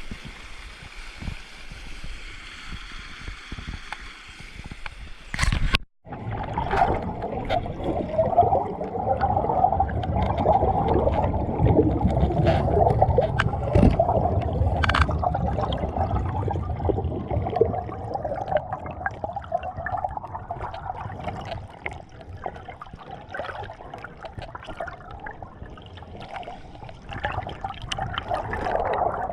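Flowing stream water: first an even rushing hiss, then, after a brief dropout about six seconds in, a muffled gurgling with scattered clicks and knocks, as heard underwater.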